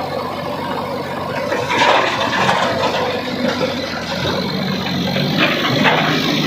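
Diesel engine of heavy machinery running steadily, with a louder burst of noise about two seconds in and a couple of knocks near the end.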